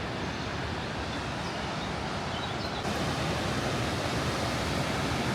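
Waterfall on the Krka River: a steady rush of falling water, slightly louder from about three seconds in.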